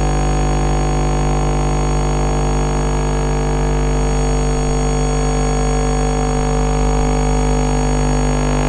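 Synthesized emergency-alert alarm tone: a loud, dense chord of many held tones over a deep hum, steady and unbroken.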